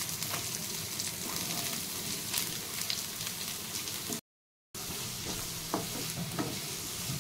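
Chopped onions and ginger-garlic sizzling in hot coconut oil in a frying pan, with a wooden spatula knocking and scraping in the pan as the onions are stirred near the end. The sound cuts out completely for about half a second just after four seconds in.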